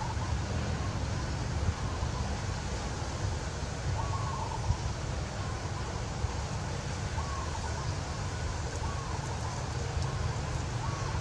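Steady wind rumble on the microphone, with short, faint arched chirps recurring every few seconds.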